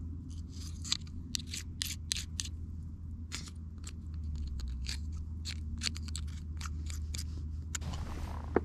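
Pocket-knife blade scraping and clicking against a mussel shell as the shell is prised open and the meat cut loose, an irregular run of small clicks and scrapes. Near the end comes a brief rustle and one sharper knock.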